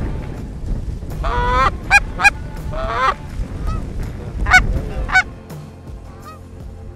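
Canada geese honking and clucking, about seven short calls in the first five seconds. Wind rumbles on the microphone under the calls and eases off about five and a half seconds in.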